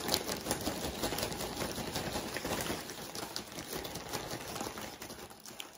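Lay's potato chips being poured out of a plastic chip bag onto sandwich paper: a dense crackling patter of chips tumbling and bag crinkling that thins out near the end.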